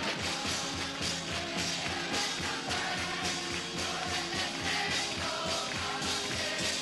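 A group of Scouts singing together at an informal sing-along, with music that keeps a steady beat.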